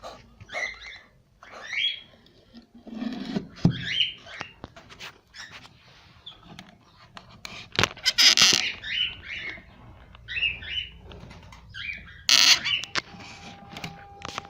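Cockatiels calling in a run of short chirps, with two louder noisy bursts about eight and twelve seconds in.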